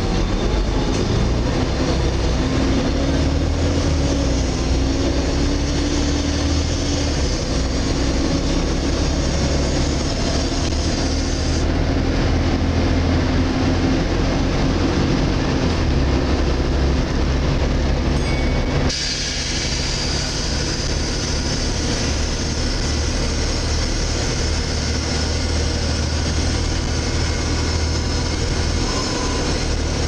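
Volvo B7TL double-decker bus on the move, heard from the upper deck: steady engine drone with road and body noise. About two-thirds of the way through, the low engine note drops suddenly and a steady high hiss sets in.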